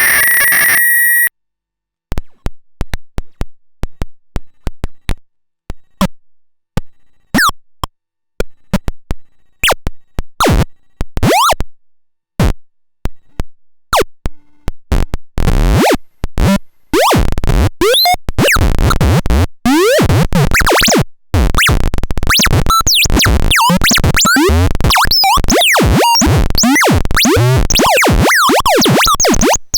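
Paratek "Kosmicheskiy Shum" eurorack noise module, a Jupiter Storm–style square-oscillator noise source, making synthetic space noises. A steady high tone cuts off about a second in. Sparse clicks and pops follow, growing denser until about halfway, when they turn into a continuous stream of chirps and sweeping pitch glides.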